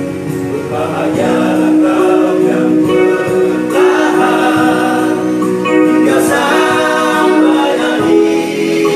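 A male vocal group of six singing together in harmony over a guitar-led instrumental backing. The voices come in about a second in, after a few seconds of instrumental playing.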